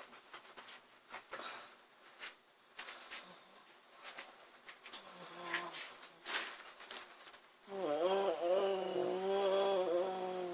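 A sleeping woman's faint, irregular snoring breaths, then about eight seconds in a loud, slightly wavering buzzing hum lasting about three seconds.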